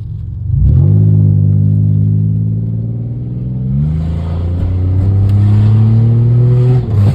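Pontiac engine with its catalytic converters removed, heard from inside the cabin while accelerating hard. Its note climbs sharply about half a second in, holds, climbs again about four seconds in, then drops off near the end as the throttle is lifted. Afterwards it is called really loud.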